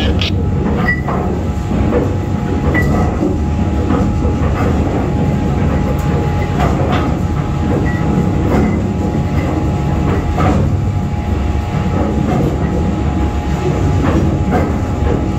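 Heavy steel anchor chain rattling and clanking as it runs down into the chain locker and piles up while the anchor is heaved in. It makes a loud, continuous rumble with sharper knocks of links striking now and then.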